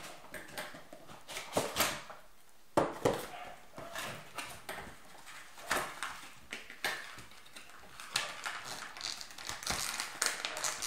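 Cardboard box and plastic toy packaging being opened and handled: irregular crinkling, rustling and clicking, with a couple of louder snaps about three seconds in.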